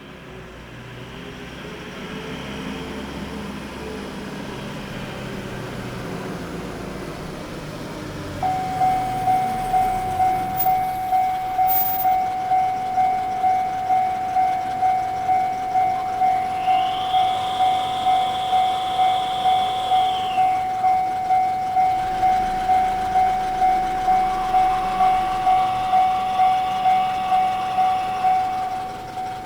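Japanese railway level-crossing warning bell (an electronic bell with the JR East Tōhoku-type tone) starting suddenly about eight seconds in and ringing in a steady, even rhythm of a little under two strokes a second. Before it starts, a road vehicle passes.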